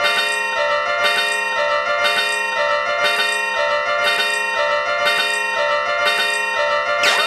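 Electronic level-crossing warning bells ringing in a steady repeating pattern, several bell tones layered together. A rising sweep cuts in near the end.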